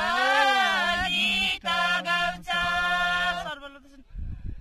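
A small group of voices singing a Nepali deuda folk song in unison, unaccompanied, in long held notes. The singing stops about three and a half seconds in, leaving a faint low rumble.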